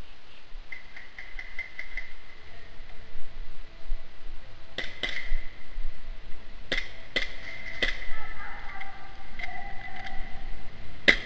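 Airsoft guns firing: a quick burst of about ten light shots in the first couple of seconds, then about eight sharp single cracks spaced irregularly through the rest.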